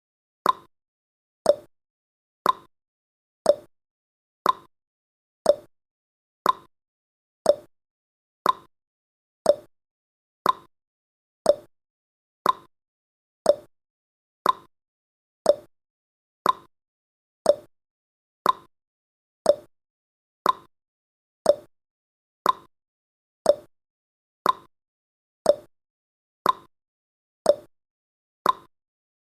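Countdown timer's clock-ticking sound effect: one short tick every second, steady and even, alternating between a higher and a lower tick like a tick-tock.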